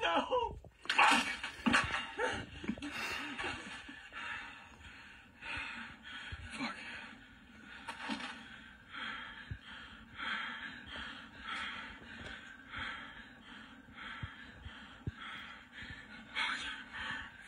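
A man breathing hard in ragged gasps, about one a second, heard through a TV speaker.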